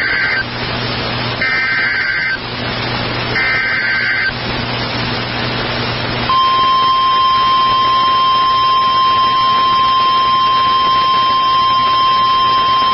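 Emergency Alert System SAME header: three short bursts of buzzy digital chirping, about a second each. About six seconds in, the single steady NOAA Weather Radio warning alarm tone starts and holds, all over radio hiss and hum. The alarm signals a tornado warning.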